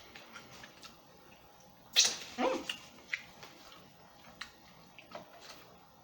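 Close-up chewing and mouth sounds while eating a burger and fries: scattered small wet clicks and smacks, with one louder sharp crunch about two seconds in followed by a brief pitched throat sound.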